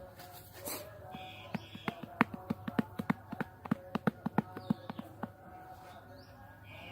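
A rapid, irregular series of sharp taps or knocks, several a second, starting about two seconds in and stopping a little after five seconds.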